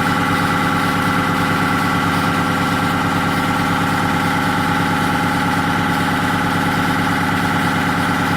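Grasso reciprocating V piston ammonia compressor running steadily, a loud even machine hum with many fixed tones and no change in speed or load.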